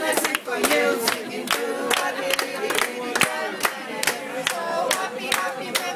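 A group of voices chanting or singing together over steady rhythmic hand-clapping, about three claps a second.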